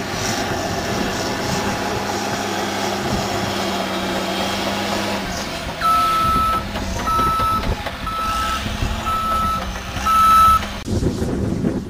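Heavy earth-moving machine's engine running steadily. From about six seconds in, its backup alarm beeps five times, about once a second. The machine sound cuts off abruptly near the end.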